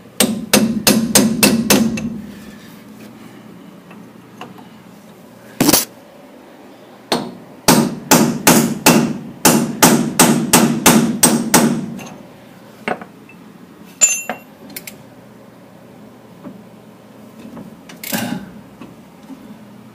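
Hammer blows on the steel of a Dana 44 front axle's steering knuckle: a quick run of about eight at the start, a longer run of about fourteen at about three a second midway, and a few single strikes after, one leaving a brief metallic ring.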